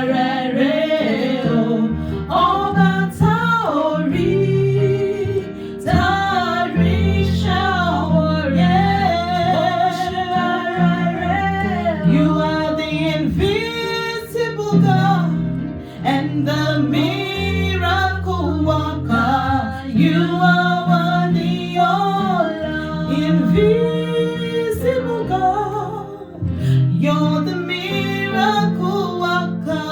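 Worship song: a voice singing a melody over guitar and a steady bass line.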